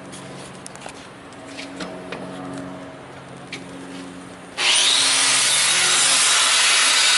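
Faint clicks over a low hum, then about four and a half seconds in an angle grinder starts abruptly and grinds on a metal bolt. The grinding is loud and steady, with a high whine.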